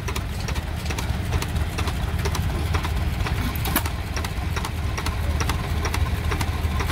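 Small antique stationary gasoline engine with spoked flywheels running, belted to a pump jack: a steady low rumble with sharp clicks repeating at short, slightly uneven intervals.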